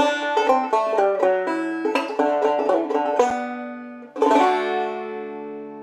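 Clawhammer banjo playing the closing phrase of an old-time tune in quick plucked notes. About four seconds in, a final chord is struck and left to ring and fade.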